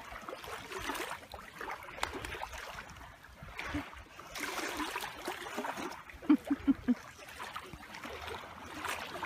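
Small waves lapping and trickling at a lake shore. About two-thirds of the way through there is a quick run of four short, low sounds.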